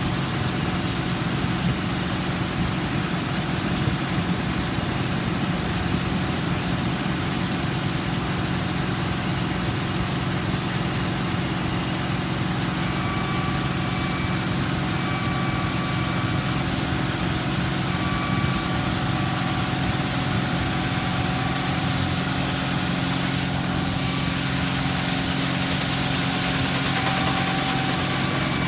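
Heavy farm machinery's diesel engine running steadily with a constant low hum. From about halfway on, a short two-pitch beep repeats every second or two.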